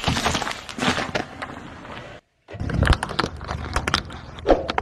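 A car tyre rolling over whole green apples, crunching and squashing them. After a short break, a tyre crushes hard plastic pieces with a rapid series of sharp cracks and a low thump.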